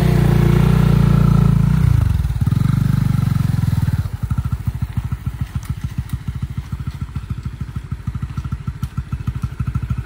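Motorcycle engine running under way, dipping briefly about two seconds in, then after about four seconds falling to a quieter, fast, even pulsing idle as the bike slows and stops.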